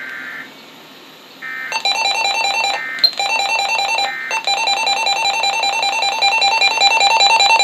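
Weather radio emergency alert tones: short bursts of screechy digital data alternate with a fast, steady train of electronic beeps. The data bursts break in three times and the beeping runs on between them.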